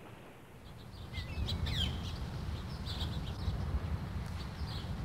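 Birds chirping, with short sweeping whistled calls starting about a second in, over a steady low rumble.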